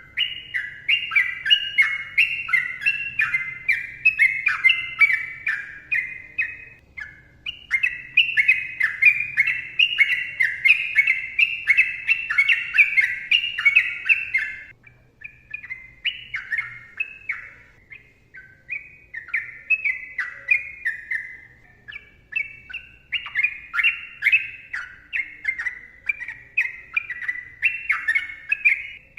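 Yellow-vented bulbul (trucukan) singing long, rapid runs of short falling chirps, broken by brief pauses.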